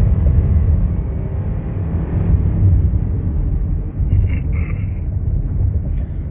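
Inside the cabin of a 2019 Subaru Outback driving on the road: a steady low rumble of road and engine noise.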